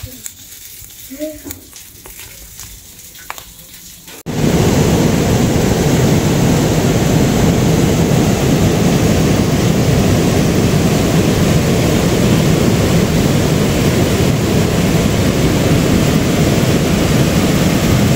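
A few faint clicks, then a loud, steady rushing noise that starts abruptly about four seconds in and holds without change.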